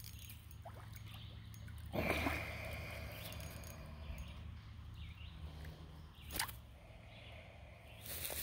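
Faint outdoor ambience with a low steady hum. About two seconds in there is a short sound with a held high tone, and a little after six seconds a single sharp click.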